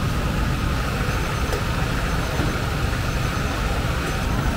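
A steady low engine-like rumble with a constant whine, unchanging throughout.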